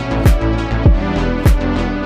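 Background electronic music with a steady kick-drum beat, about one thump every 0.6 s, over held bass and synth chords.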